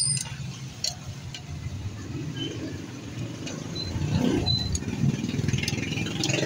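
Street traffic: a vehicle engine running steadily, swelling about four seconds in, with a few light clicks of metal tongs.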